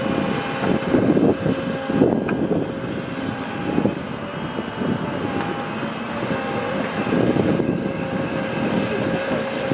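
Heavy diesel machinery running steadily, a continuous drone with a held whine and uneven surges in load.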